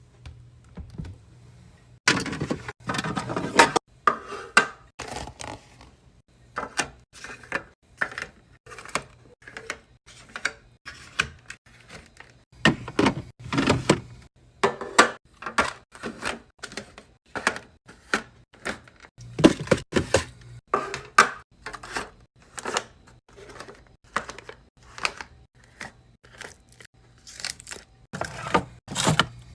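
Containers and packaging being handled and set down on fridge shelves: irregular clunks, taps and plastic rustling, a few every second with short pauses between.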